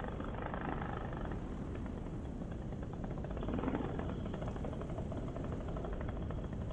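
Paramotor engine running, mixed with wind rushing over the microphone, as the pilot comes in on a landing approach.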